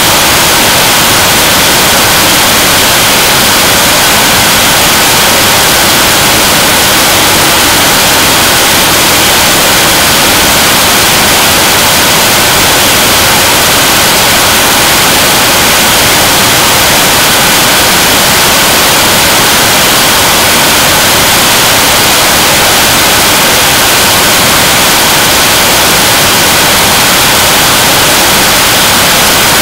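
Korean Launch Vehicle 7-ton-class liquid-propellant rocket engine (kerosene and liquid oxygen) at full steady firing in a hot-fire test: a very loud, even rushing noise that holds without change, strongest in the upper range.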